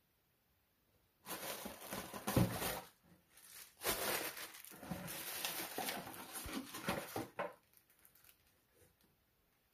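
Plastic packing material crinkling and rustling as it is handled and pushed aside, in two long stretches: one starting just over a second in and one from about four seconds in until near the end.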